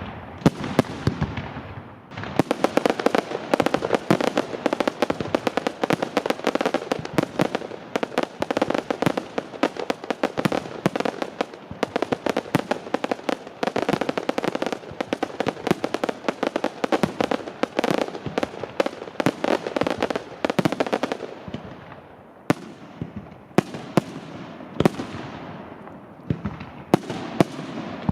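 Aerial fireworks display: a dense barrage of rapid bangs and crackles for most of the time, thinning near the end to single loud bursts, each trailing off in an echo.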